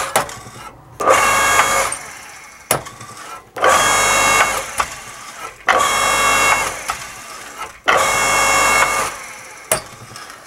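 A 7-ton electric log splitter, used as a forge press, cycling its ram over a short stroke. The electric motor and hydraulic pump run in four bursts of about a second each. Sharp clicks fall between the runs.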